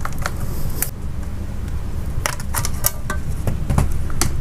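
Back cover of an Acer Iconia tablet being pried off by hand, its plastic clips clicking and snapping loose: a scatter of sharp clicks, thickest in the middle, over a steady low hum.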